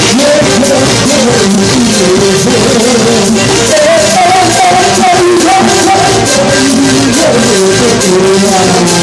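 Loud live band playing upbeat dance music, with a sung melody over a steady percussion beat.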